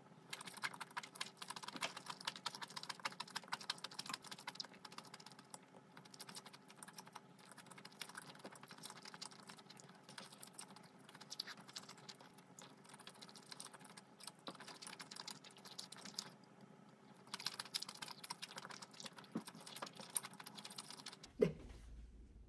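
Close-miked chewing of a mouthful of mala-sauce spaghetti noodles: a dense run of small wet mouth clicks, thinning briefly twice.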